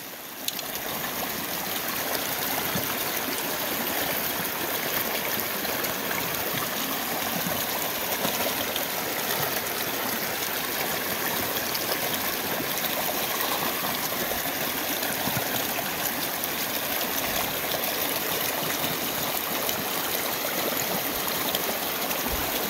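Small mountain creek running over rocks: a steady rush of flowing water.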